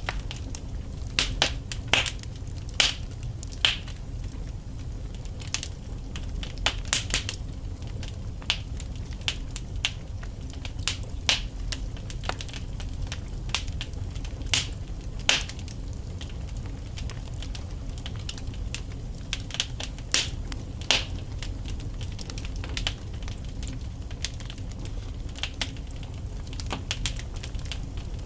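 Wood fire burning in a fireplace: logs crackling and popping with irregular sharp snaps over a steady low rumble of the flames.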